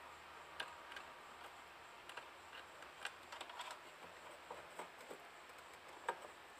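Faint clicks and light handling noise as alligator-clip test leads are fitted onto a small LED driver board, with scattered short ticks, the sharpest about three seconds in and near the end.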